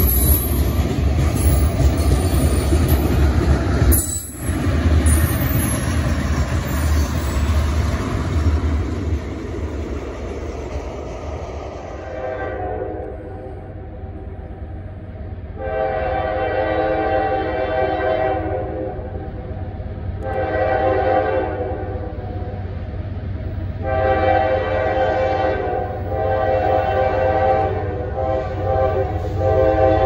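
A train rumbles close by. From about twelve seconds in, a locomotive's multi-chime air horn sounds in a series of long blasts of a few seconds each, with short gaps between them.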